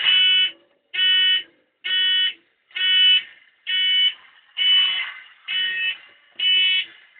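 An electronic alarm buzzer beeping in a steady rhythm: eight buzzy beeps of about half a second each, a little under one a second.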